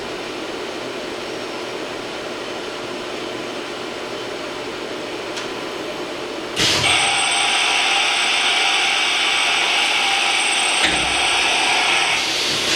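Trak LPM vertical machining center running with a steady low hum; about halfway through, a louder rushing machine noise with a high steady whistle starts suddenly, a click sounds during it, and it stops just before the end.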